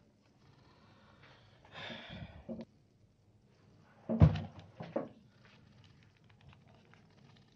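Paper rustling as an origami sheet is handled and folded, then a sudden dull thump about four seconds in, the loudest sound, followed by two lighter knocks.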